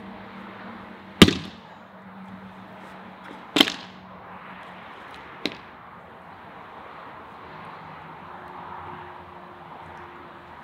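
Hatchet chopping firewood: three sharp strikes on wood about two seconds apart, the third lighter than the first two.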